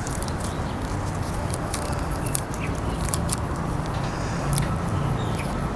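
Light scattered crinkles and ticks of paper and sticky tape being handled and pressed around a plastic drinking straw, over a steady low background noise.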